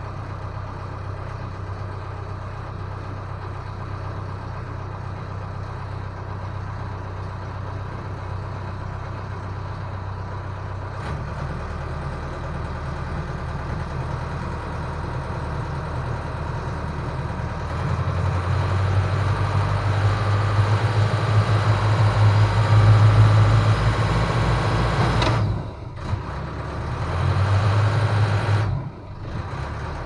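Towboat's engine running steadily under load while it tows a sailboat on a line. Its low hum grows louder about two-thirds of the way through as the throttle goes up, then drops off sharply twice near the end and picks up again each time.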